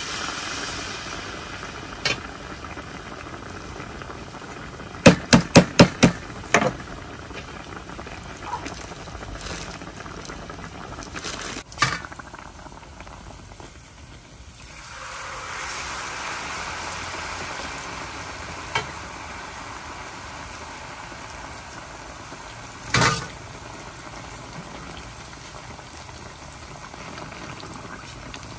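Twice-battered banana deep-frying in a small pan of hot oil: a steady sizzle that swells and fades. Metal tongs and a skimmer knock against the pan now and then, with a quick run of about five knocks about five seconds in and single knocks later.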